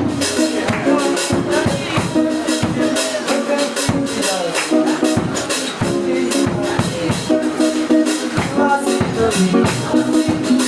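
Upbeat church praise music with a steady drum beat and shakers over sustained keyboard-like notes.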